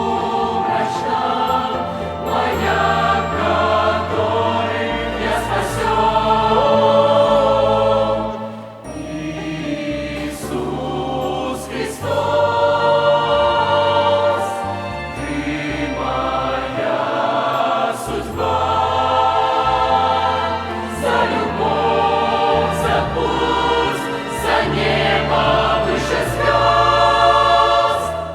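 Youth choir singing a Russian-language Christian worship song in several voices, with instrumental accompaniment holding low sustained notes underneath. The singing pauses briefly between phrases, with dips about 9 and 16 seconds in.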